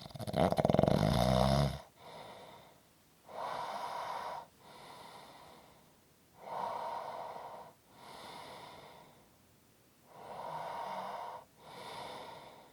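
Snoring in sleep: one loud, low-pitched snore at the start, then three cycles of quieter, airy breaths in and out, about one every three and a half seconds.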